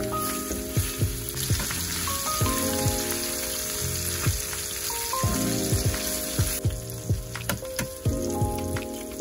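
Diced chicken and carrots sizzling in a nonstick frying pan while being stirred with a wooden spoon; the sizzle is loudest in the middle few seconds.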